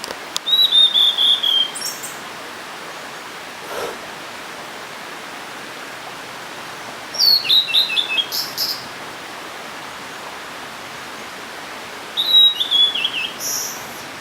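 Blue-and-white flycatcher singing: three song phrases of quick, high whistled notes that step downward, several seconds apart, over a steady hiss.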